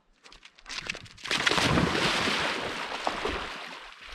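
A dog splashing as it charges into shallow lake water after a thrown fetch toy. The splashing starts about a second in, is loudest a moment later, and then tapers off.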